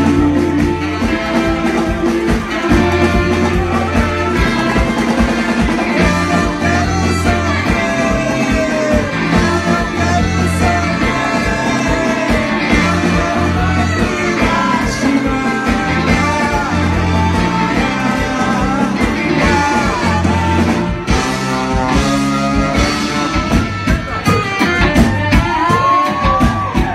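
Live band playing: electric guitars, bass guitar, drums and saxophones, with a steady repeating bass line.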